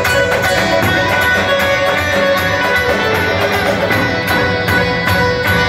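A saz and a davul played live together: a plucked long-necked lute melody over a steady beat on the big double-headed drum.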